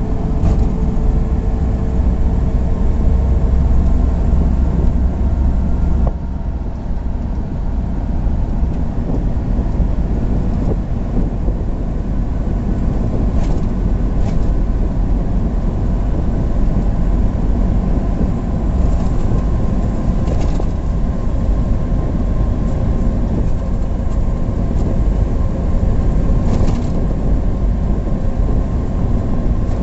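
A vehicle driving at speed on a new expressway: a steady, loud rumble of road and engine noise with a faint steady whine above it.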